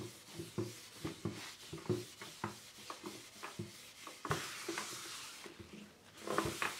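0000 steel wool wet with mineral spirits scrubbed back and forth over a stripped oak tabletop: quick repeated rubbing strokes, with one longer hissing stroke a little past the middle. Near the end a cloth wipes across the wood.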